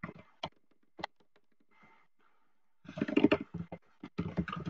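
Typing on a computer keyboard: a few separate keystrokes, a pause, then two quick runs of keys, about three and four seconds in.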